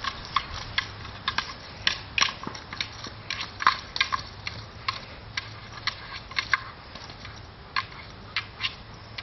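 Hard plastic Playpal Scrambler dog toy clicking and knocking as a Doberman mouths and shoves it along the ground. The sharp, irregular clicks come about two or three a second.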